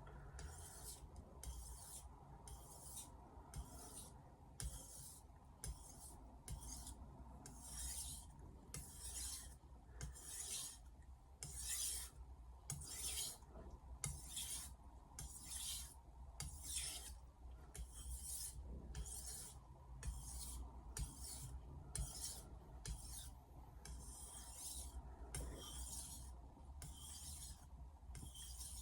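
Misono 210 mm Japanese kitchen knife being stroked back and forth across a whetstone: a steady rhythm of light, rasping strokes, about three every two seconds.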